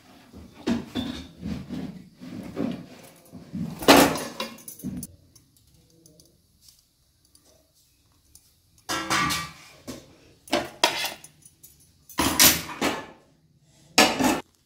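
Metal kitchen utensils clinking and clattering against a gas stove while a flatbread is handled over the burner. The clatter comes in scattered bursts, with a quiet stretch of a few seconds in the middle.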